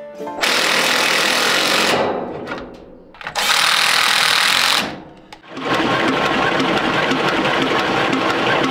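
Two short mechanical whirring runs of about a second and a half each. From about six seconds in comes a long steady run of the old Chevrolet truck's inline-six being cranked over by its starter motor, spark plugs out, spinning freely after being freed from seizure.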